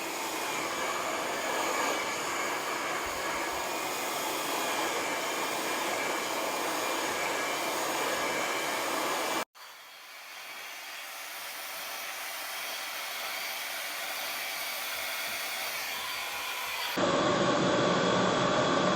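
Conair InfinitiPro hair dryer running steadily as hair is blow-dried: a rush of air with a faint high whine. The sound cuts out for an instant about halfway through and comes back quieter, then jumps louder near the end.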